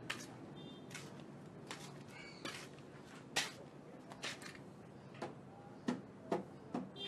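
Cloth towel being swung and slapped against an old CRT television and its table to dust it off: a series of sharp slaps and flicks, several of them loud.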